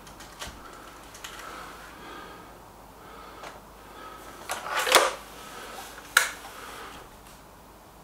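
Stoeger RX20 break-barrel air rifle being handled, cocked and reloaded between shots: scattered mechanical clicks and clacks, the loudest cluster about five seconds in and a sharp single click just after six seconds.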